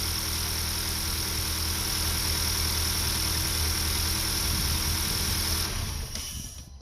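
Honda Accord four-cylinder engine idling evenly, its cylinder 1 misfire cured by new spark plugs and an ignition coil. It is switched off about six seconds in and runs down to a stop.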